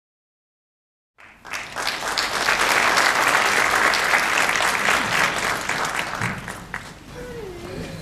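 Audience applauding. It begins about a second in, is at full strength for a few seconds, and dies away near the end.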